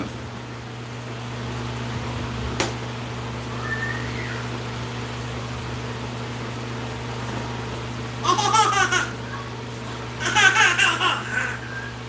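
A young child's high-pitched voice laughing or squealing twice in the background near the end, over a steady low hum from a fan or air conditioner.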